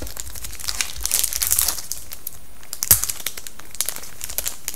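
Foil trading-card pack wrapper being torn open and crinkled by hand, with dense crackling in the first two seconds and one sharp click about three seconds in.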